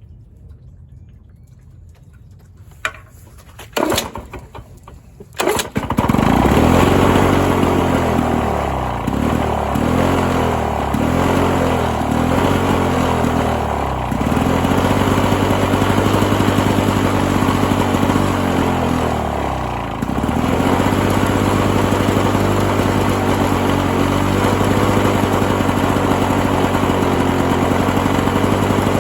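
Lawn-Boy 5247 push mower engine being pull-started: a few short pulls, then it catches about six seconds in. It runs unevenly at first, its speed surging up and down, as it struggles to stay running. It sags about twenty seconds in, then picks up and runs steadily.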